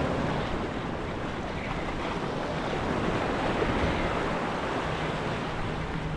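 Ocean waves washing steadily, with wind buffeting the microphone.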